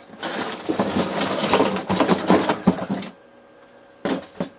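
Printer parts rattling and clattering as they are handled and pulled at, a busy run of clicks and knocks for about three seconds. After a short pause come two quick knocks near the end.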